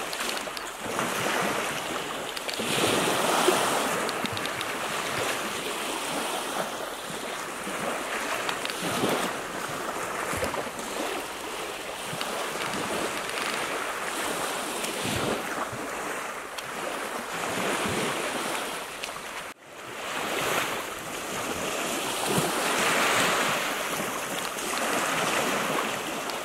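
Small waves washing and lapping against a stony shoreline, swelling and easing every few seconds, with some wind on the microphone. The sound cuts out for a moment about twenty seconds in.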